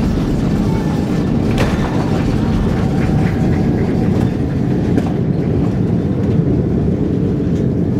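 Steady loud rumble inside the cabin of an Airbus A330 rolling along the runway after landing, from the engines and the wheels on the runway, with a few faint clicks.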